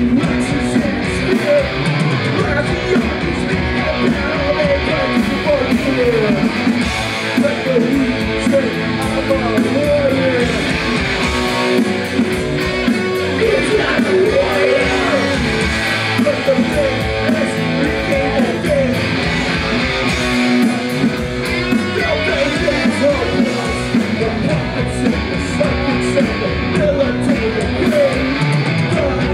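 A punk rock band playing live and loud: electric guitars, bass and drums in an instrumental stretch of a song, with guitar lines sliding up and down over a driving beat.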